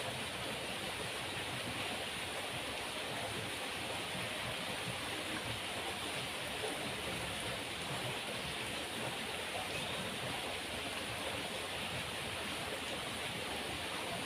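Fast-flowing river water rushing steadily, an even noise without breaks.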